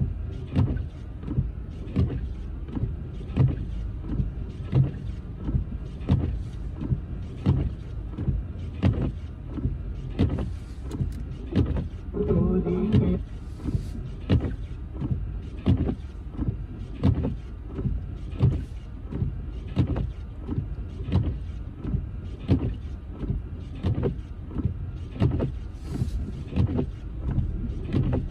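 Car cabin in slow snowy traffic: a steady low road and engine rumble, with windshield wipers sweeping about once a second. A short hum-like tone comes about halfway through.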